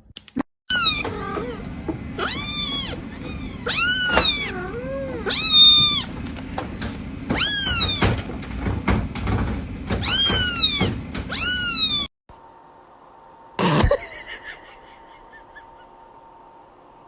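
A cat meowing over and over, about nine high-pitched meows in a row, each rising and falling in pitch. After the meows stop abruptly there is one short thump, then only a faint steady hum.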